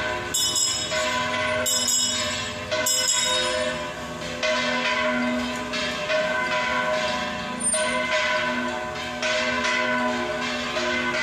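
Church bells ringing, a new stroke about every second and a half, each left ringing into the next.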